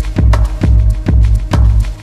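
Background music with a steady, driving beat: heavy bass pulses about twice a second under quicker sharp hits and held notes.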